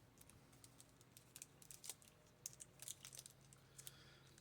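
Faint, scattered clicks and crinkles of baseball cards and their pack wrapper being handled.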